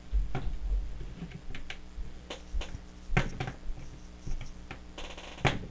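Plastic Lego bricks clicking and scraping as a Lego brick separator pries at them, trying to work a built section loose. Sharp, irregular clicks, with dull handling knocks in the first second.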